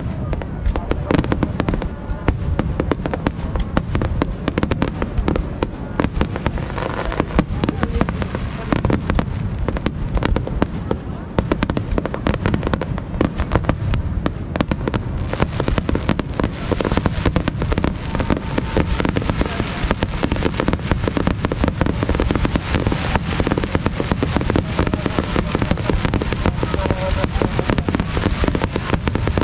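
Fireworks bursting in a dense, rapid barrage: a continuous run of many bangs and crackles each second over a low rumble.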